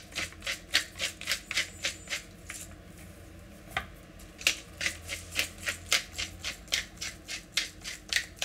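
Pepper mill being twisted by hand, grinding peppercorns: a rapid run of crunchy clicks, about four or five a second, pausing for a moment around the middle before starting again.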